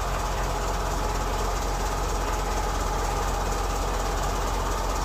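Diesel tractor engine idling steadily, with a fast even beat.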